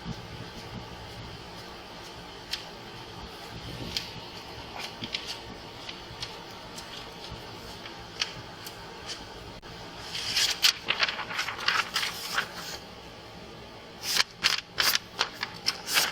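Steady low hum, like a vehicle's fan or idle, with scattered light clicks. About ten seconds in and again near the end come spells of quick rustling and clicking from handling things, typical of paperwork being handled.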